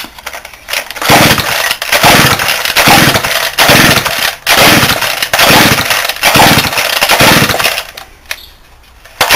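Stihl 08 two-stroke chainsaw being pull-started over and over on full choke, about nine quick pulls of the recoil starter in a row, cranking without catching. Its diaphragm is thought to be hardened, so it is getting little fuel.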